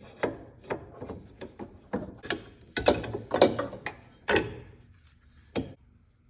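Irregular clicks and knocks of metal parts in a John Deere 1025R's pedal assembly being forced and wedged into place by hand, loudest a little past three seconds in, with one last knock near the end.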